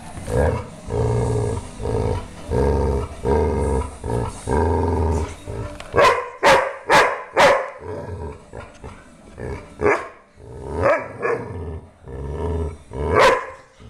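Dog growling over a rope tug toy in a run of low, drawn-out growls, then four sharp barks in quick succession about six seconds in, followed by shorter yips and growls and one last loud bark near the end.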